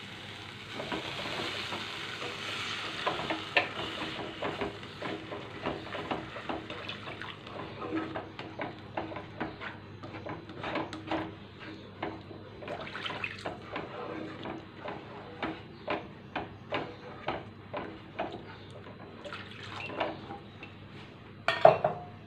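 Water poured into a hot non-stick kadai of fried masala, hissing for the first few seconds. Then a plastic slotted spatula stirring the thin gravy and scraping the pan in many short, uneven strokes, with one louder knock near the end.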